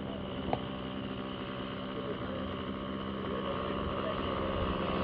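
Engine of a radio-controlled Pitts Special model biplane droning steadily in flight, growing louder near the end as it comes closer. A short click about half a second in.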